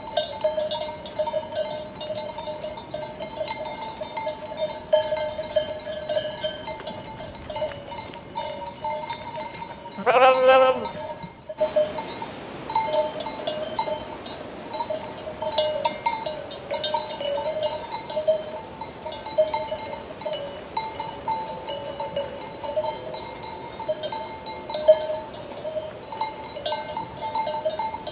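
Sheep bells ringing and clinking on and on as the flock moves. About ten seconds in, a sheep gives one loud bleat of about a second and a half.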